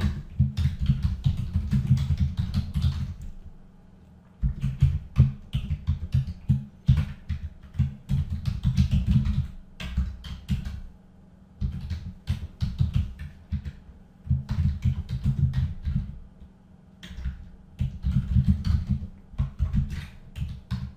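Computer keyboard being typed on in quick runs of keystrokes, separated by short pauses of about a second.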